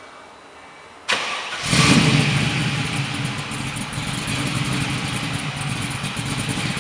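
1969 Chevrolet Camaro Z/28's 302 V8 starting through an aftermarket performance exhaust. About a second in there is a brief crank, then the engine catches with a loud burst and settles into a steady idle.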